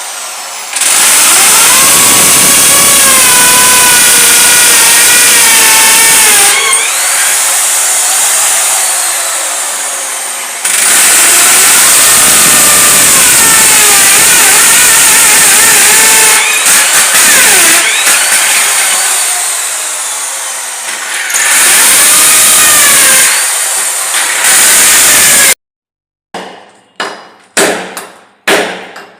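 Electric drill boring holes in a wall in three long runs, its motor whine rising and sagging in pitch as it loads up, with short pauses between. Near the end, several sharp hammer blows about two a second.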